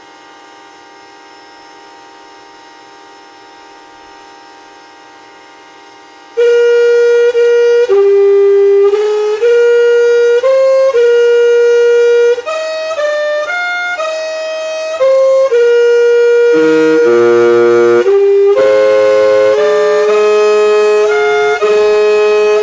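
Yamaha music siren sounding the noon time signal. For about six seconds its motor spinning up gives a quiet, steady harmonica-like chord. Then a loud melody starts suddenly, single held notes at first, with lower harmony notes joining in the second half.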